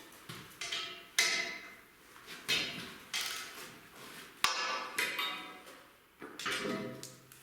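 Hammer blows on steel, about a dozen irregular strikes roughly every half second to a second, each ringing and dying away.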